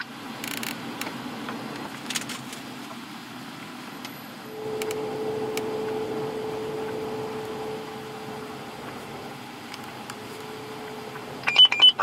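Steady traffic and vehicle noise, with a steady hum that sets in about four and a half seconds in, fades, and comes back near the end. A few short, sharp bursts come just before the end.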